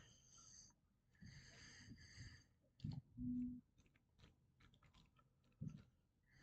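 Near silence with a man's faint, wheezy breathing, a soft knock about three seconds in followed by a short low hum, and another soft knock near the end.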